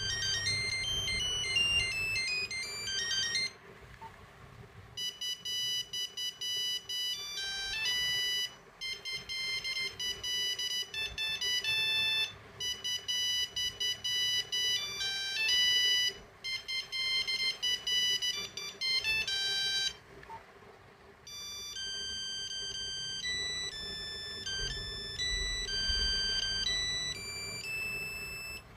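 Nokia 8250 mobile phone playing its monophonic ringtones: quick tunes of high beeping notes, one note at a time, with short pauses about four and about twenty seconds in where one tune gives way to the next.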